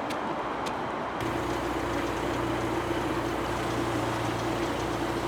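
Steady mechanical hum: a low drone with a steady mid-pitched tone over a noisy background, setting in about a second in after a stretch of plain noise.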